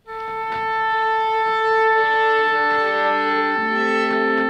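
An oboe sounds a long, steady concert A for the orchestra to tune to. From about two and a half seconds in, other instruments join with held notes of their own as they tune to it.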